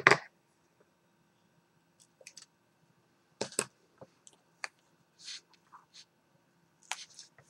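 Scattered light clicks and taps from handling a plastic acetate sheet and double-sided tape on a cutting mat, the loudest right at the start and about three and a half seconds in, with a brief soft scrape a little after five seconds.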